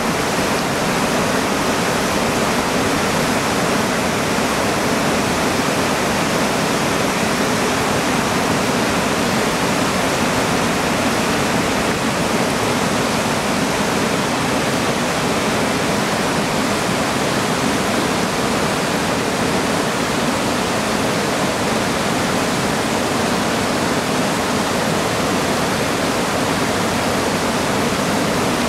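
Yellowstone River rapids: fast white water rushing over and around boulders, a steady, unbroken rush of water.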